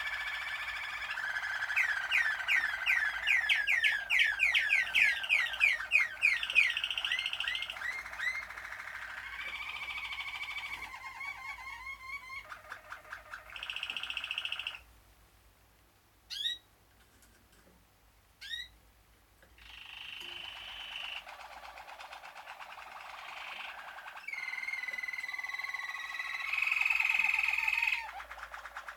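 Malinois (Waterslager) song canaries singing a continuous song of rolls and trills, with a fast run of repeated rising notes early on. About halfway through the song stops for some five seconds, broken only by two short rising notes, then the rolling song resumes.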